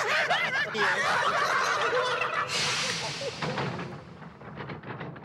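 Several men whooping and hollering excitedly. About two and a half seconds in, a crowd takes over cheering and clapping, then fades down.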